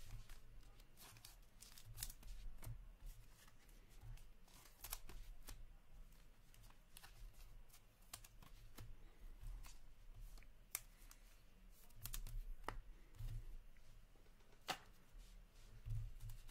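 Hockey trading cards being handled and shuffled by hand: faint, scattered clicks and taps of cards against each other and the table, with the rustle of a clear plastic card sleeve.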